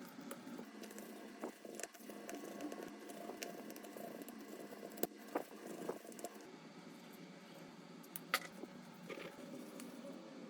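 Faint handling noise from repair work on a smartphone, with scattered light clicks and taps of small tools and parts; the sharpest clicks come about five seconds in and again past eight seconds.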